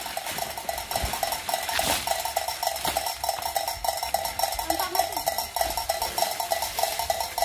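A steady, rapid metallic tinkling, 'klinting klinting klinting', pulsing many times a second without a break. A few sharp knocks sound in the first three seconds.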